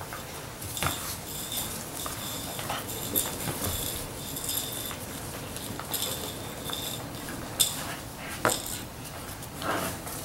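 Labrador retriever puppies playing on a concrete floor: a scatter of light clicks, taps and scuffs from their claws and toys, with a few sharper knocks.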